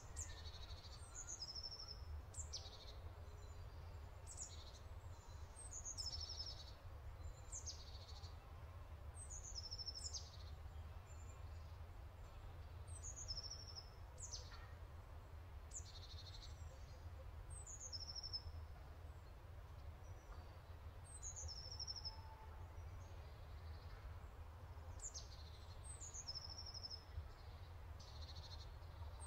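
A small songbird singing a short phrase of high chirps that step down in pitch, repeated every few seconds, over a steady low hum.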